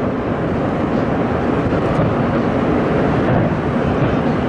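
Distant aerial fireworks shells bursting in a dense barrage, their bangs merging into one loud, steady rumble with no single report standing out.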